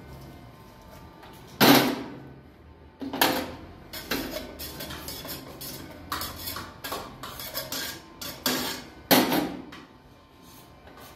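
Metal utensil clanking and scraping against a wok while noodles are stir-fried: a string of sharp clanks, with the loudest about one and a half seconds in and again about nine seconds in.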